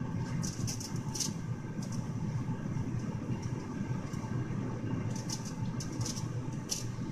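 A spoon scraping and clinking lightly against a bowl while spooning melted chocolate, a few short sounds scattered through, over a steady low background hum.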